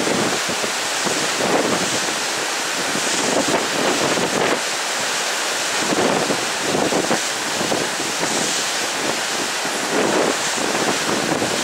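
Wind buffeting the microphone in irregular gusts over a steady rush of wind and choppy sea.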